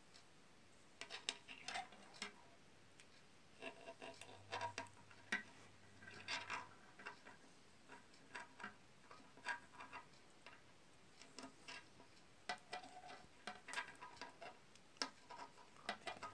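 Knitting needles clicking and tapping together as stitches are worked, in faint irregular clusters of small clicks with short pauses between them.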